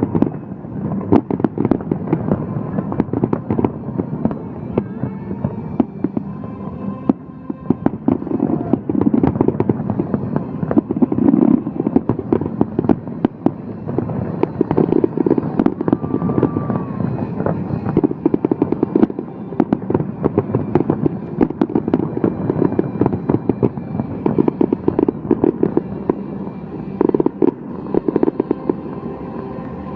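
Fireworks going off in a dense, continuous barrage of rapid bangs and crackling.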